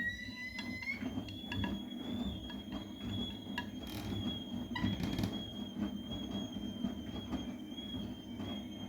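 Vestel CMI 97302 washing machine running with its drum spinning: a motor whine rises in pitch and then holds steady about a second in, over a low rumble.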